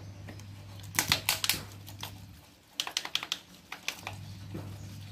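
Two bursts of quick sharp clicks and clatters, about a second in and again near three seconds, from a small engine part being knocked about and handled in a plastic tray of cleaning fluid. A steady low hum runs underneath and drops out briefly midway.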